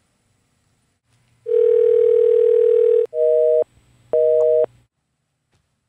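Telephone tones heard down a phone line: one steady dial tone for about a second and a half, then two short two-tone busy-signal beeps.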